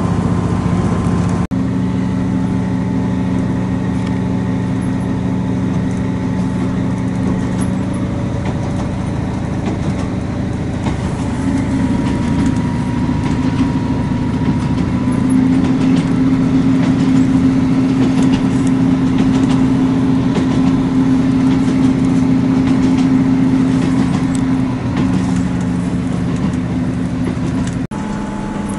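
Diesel train running along the line, heard from inside the carriage: a steady engine hum with running noise. The engine note steps up in pitch about halfway through and drops back near the end.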